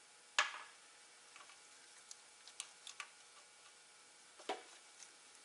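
Hand tools and small parts clinking and clicking as they are handled in a diesel truck's engine bay: a sharp clink with a brief ring about half a second in, a few light ticks in the middle, and another clink near the end.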